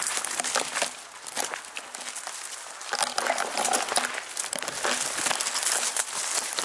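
Someone pushing through dense undergrowth on foot: dry leaves and twigs crunching underfoot and branches rustling and scraping past, in an irregular run of crackles.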